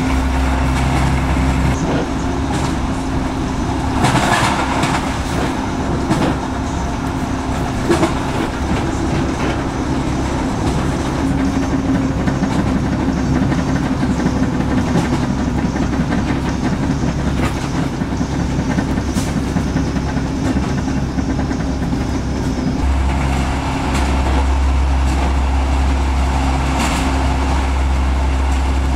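Train running along the track, heard from aboard: a steady rumble of wheels on rail with a low hum, and a few sharp clicks now and then.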